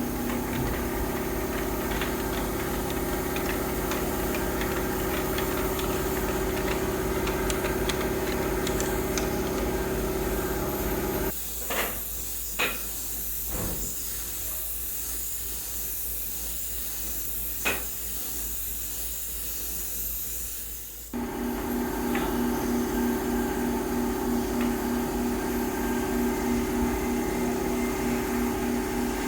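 Woodworking machinery running with a steady hum. For about ten seconds in the middle it gives way suddenly to a hissing noise with a few sharp knocks, then the hum returns.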